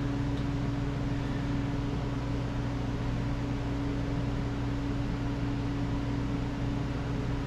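Steady low mechanical hum with a constant droning tone that does not change. No radiator fan starts up: the fan circuit is not yet working.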